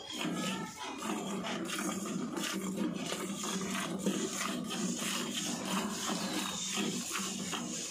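Cow being hand-milked into a steel pail: milk squirting from the teats in quick, rhythmic strokes.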